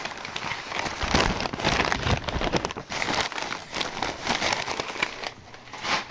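Brown packing paper crinkling and rustling as it is handled and pulled apart by hand, close to the microphone: a dense, continuous crackle.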